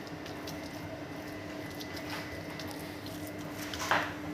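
Minced-meat filling being spooned and pressed onto raw dough: soft, wet squishing with small clicks, and one short, louder squelch near the end. A steady low hum runs underneath.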